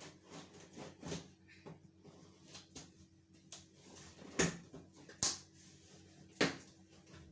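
A cardboard box is handled and opened: scattered light rustles and clicks, with three sharp knocks at about four and a half, five and six and a half seconds in.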